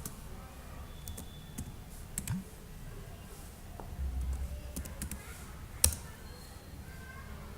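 Scattered clicks and key taps on a computer keyboard, with the sharpest click about six seconds in.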